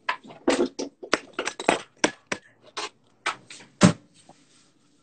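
Kitchen knife chopping an onion on a cutting board: a quick, irregular run of knocks, the loudest just before they stop about four seconds in.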